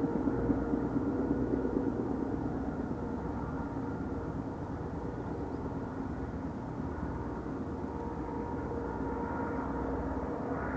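Two DF4B diesel-electric locomotives (16-cylinder V engines) hauling a long passenger train, approaching out of sight: a steady engine drone over a low rumble, with several held tones. It dips a little in the middle and swells again near the end.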